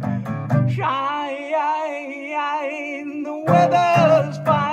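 Acoustic guitar strumming with a harmonica from a neck rack; about a second in, the guitar stops and the harmonica holds a long wavering chord, then the strumming comes back in near the end.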